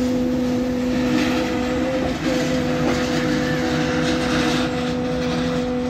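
Train horn sounding one long steady blast, broken briefly about two seconds in, over the clatter of passenger coaches rolling past on the rails.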